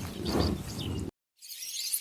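Low animal calls cut off abruptly about a second in, followed after a brief silent gap by thin, high-pitched chirping.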